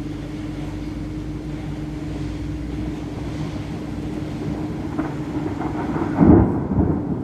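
Thunder rumbling low and continuously in a heavy thunderstorm, with a louder peal about six seconds in that rolls on to the end.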